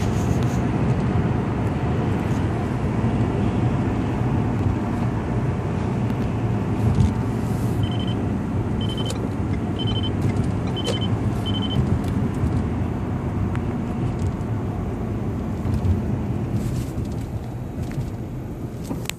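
Road and tyre noise inside a moving car's cabin at highway speed, a steady low rumble. About eight seconds in, five short high beeps sound roughly a second apart.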